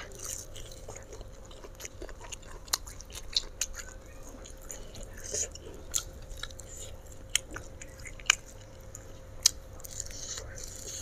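Close-up chewing of a mouthful of fried mackerel and rice with sambal, with scattered soft clicks, smacks and crunches.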